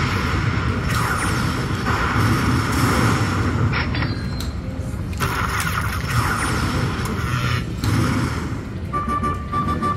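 Lightning Link poker machine playing its win-celebration music with booming effects while the win meter counts up. A steady, repeating high tone comes in near the end.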